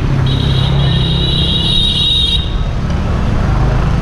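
A motorbike horn sounds one long, high-pitched blast lasting about two seconds, starting a moment in. A steady traffic rumble continues underneath.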